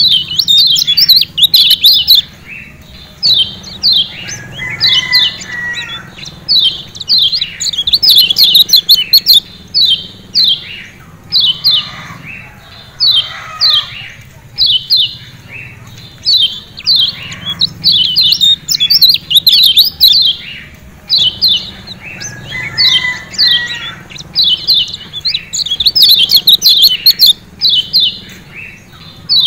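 Lombok yellow white-eye (kecial kuning) calling in rapid bursts of short, high, falling 'ciak ciak' chirps, cluster after cluster with brief gaps between. It is a lure recording meant to set caged white-eyes singing.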